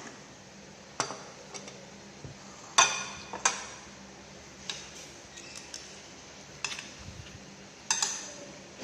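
Dishes and utensils clinking and knocking: about six separate sharp clinks with a short ring, the loudest pair about three seconds in.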